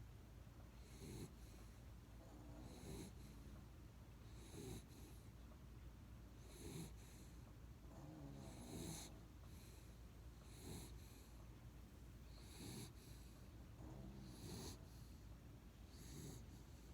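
Faint snoring from a sleeping pet, one snoring breath about every two seconds, each with a low rattle and a breathy hiss.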